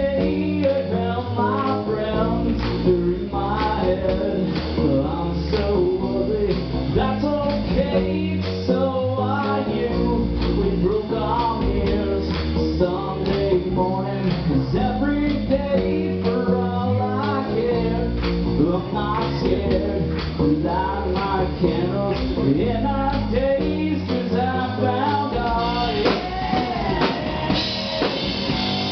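Live rock band playing: a man singing lead over electric guitars and a drum kit keeping a steady beat. The cymbals get brighter near the end.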